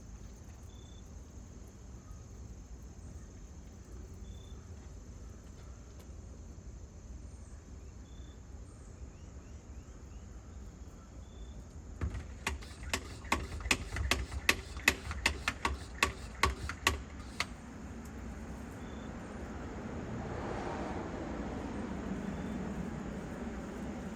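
Outdoor background with insects chirping faintly, broken in the middle by a quick irregular run of about fifteen sharp clicks over five seconds; near the end a broad rushing noise swells up, like a vehicle approaching.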